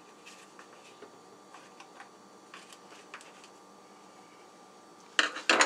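Small plastic clicks and taps as the parts of a Hoover Air Lite vacuum's cyclone assembly are handled and screws are fitted, over a faint steady hum. About five seconds in, a short, much louder clatter of several knocks.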